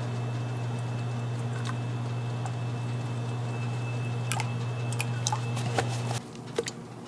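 Steady low machine hum in a café kitchen with scattered light clicks and taps of utensils. The hum cuts off about six seconds in.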